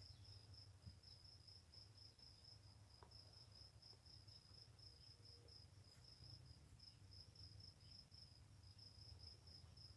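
Near silence: faint, steady high-pitched insect chirping, pulsing about five times a second, over a low hum.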